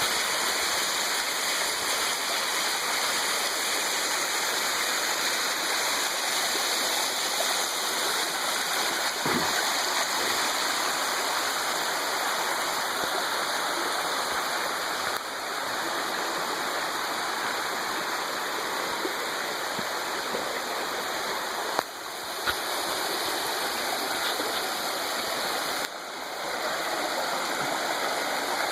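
Stream water rushing steadily, a dense even hiss of flowing water with a few brief dips in level and a single sharp click about two-thirds of the way through.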